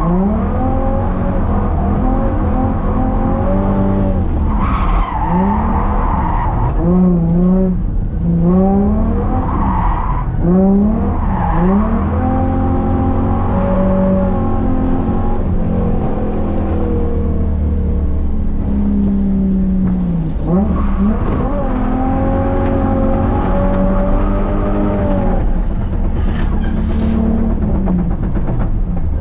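A drifting car's engine revving hard and falling back again and again, with bursts of tyre squeal as the car slides.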